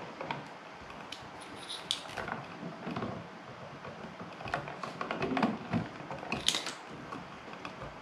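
Rustling and small clicks of insulated electrical wires being handled and pushed into push-in (stab-in) wire connectors, with one sharper click late on.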